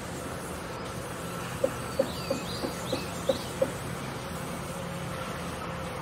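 A vertical band sawmill runs steadily as its blade cuts along a log, a continuous buzzing hum. About one and a half seconds in comes a quick series of seven short, sharp ticks, roughly three a second, with faint high chirps over them.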